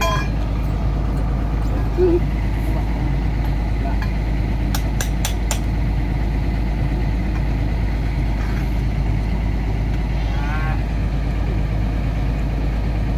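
A steady low engine rumble at idle. About five seconds in come four quick, sharp metallic taps, a hammer striking steel at an excavator track-shoe bolt.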